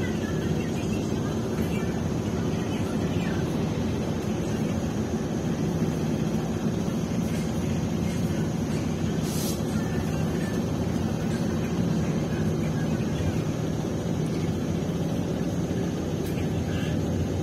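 Steady low engine and road drone heard inside the cabin of a double-decker bus, with a brief hiss about halfway through.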